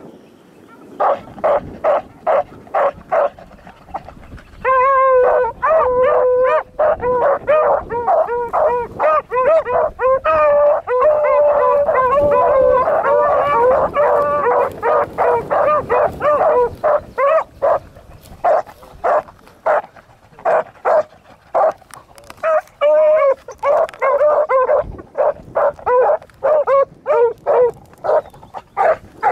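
Beagles giving tongue as they work a rabbit's scent line: short, pitched bays repeated several times a second. From about five seconds in until a little past halfway, several dogs bay over one another in a dense run, then it thins back to separate bays.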